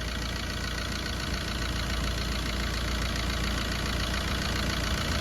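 2011 Fiat Linea engine idling steadily on a newly fitted timing chain. The mechanic judges it to be running correctly.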